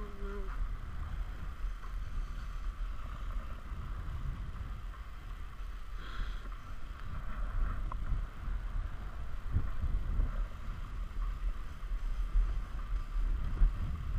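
Wind buffeting the microphone in low gusty rumbles, over a steady hiss of skis sliding across snow while being towed up a button drag lift.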